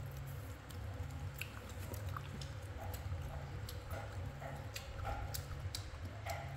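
Baby monkey biting and chewing a piece of mango, irregular small wet clicks and smacks.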